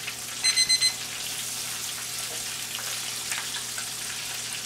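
Catfish fillets deep-frying in a pot of oil, a steady sizzle as the fish reaches doneness. About half a second in, a timer beeps four quick times.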